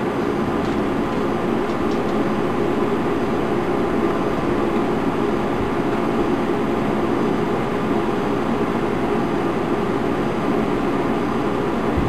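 Microwave oven running with a steady drone while a laser printer's fuser heating lamp arcs inside it, sparks creeping along the element.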